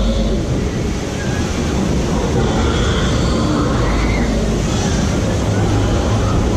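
A water-ride boat climbing its lift hill: water rushing down the lift channel around it and a steady mechanical rumble from the lift.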